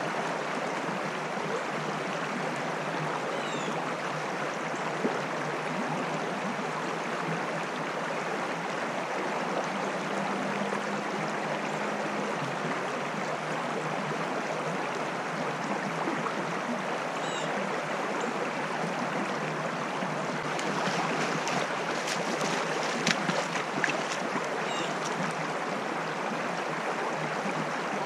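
Shallow stream rushing steadily over rocks in a shallow riffle. About three-quarters of the way through, a few sharp splashes and knocks sound close by.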